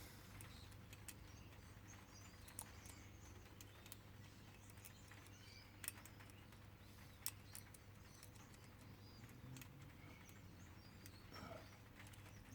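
Faint, scattered clicks of a lock pick and tension wrench working the pin stack of a six-pin Paclock padlock clamped in a vise, with a few sharper ticks among them.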